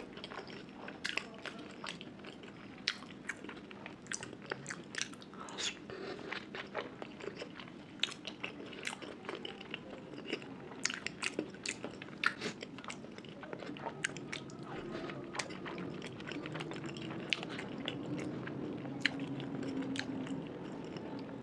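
A person chewing food close to the microphone, with many irregular crisp mouth clicks and crunches. A faint steady hum sits underneath in the second half.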